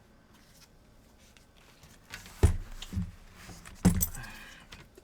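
Small hard tools or parts clattering on a workbench: two sharp knocks about a second and a half apart, with a smaller knock between them and light clicks after.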